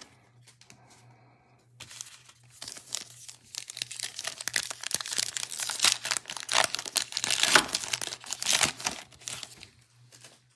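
Foil wrapper of a 2021 Illusions football card pack being torn open and crinkled in the hands: a dense run of crackles that starts about two seconds in and stops shortly before the end.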